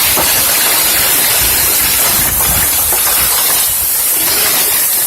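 Hailstorm: hailstones pelting down on the yard and nearby surfaces, a loud, dense, steady hiss of falling ice.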